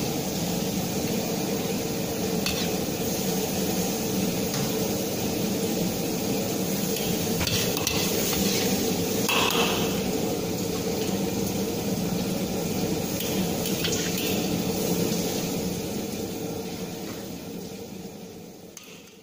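A metal ladle scraping and clinking now and then against a wok and ceramic bowls as soup is ladled out, over a steady kitchen hum; the sound fades out near the end.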